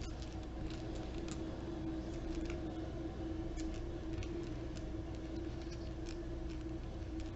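Miniature dominoes clicking and tapping together as they are handled, a scatter of small, irregular clicks over a steady low hum.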